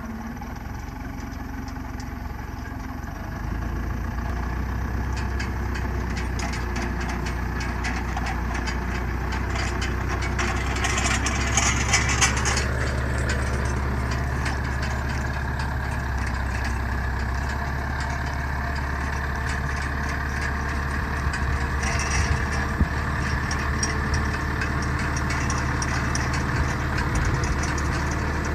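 Backhoe loader's diesel engine running steadily as the machine moves along slowly, getting louder about three and a half seconds in. Brief noisy bursts about eleven seconds in and again around twenty-two seconds.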